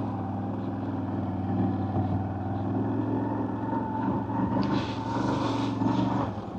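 CFMoto CForce 1000 ATV's V-twin engine running steadily at low speed while crawling over rocks, with a brief hiss about two-thirds of the way through.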